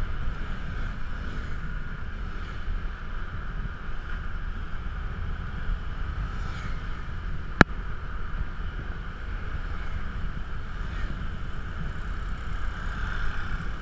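Motor scooter riding along a road: steady wind rumble on the bike-mounted camera's microphone over the hum of the scooter's engine. A single sharp click about halfway through.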